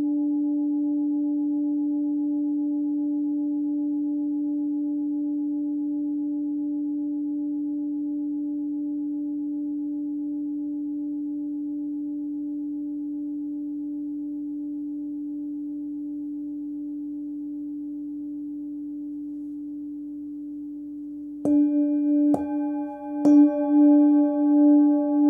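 Hand-forged singing bowl tuned to about 291 Hz (D) ringing a long, steady hum with fainter higher overtones, slowly fading. About 21 seconds in it is struck three times in quick succession and rings louder again, swelling and fading in a slow pulse.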